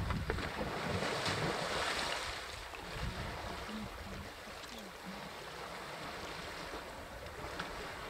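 Wind rumbling on the microphone with a steady hiss, easing after about two and a half seconds.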